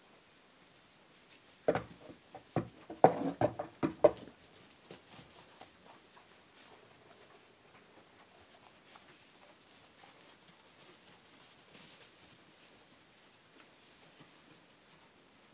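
Jacob sheep and their lambs in a straw-bedded pen: soft rustling of hay and straw, broken about two seconds in by a quick run of loud, sharp knocks lasting a couple of seconds.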